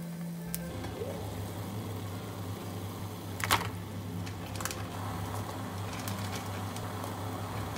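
Water bubbling at a boil in a small enamel saucepan, with a steady low hum underneath. About halfway through there is a sharp click, and a lighter one a second later, as frozen shimeji mushrooms and strips of fried tofu are dropped into the pot.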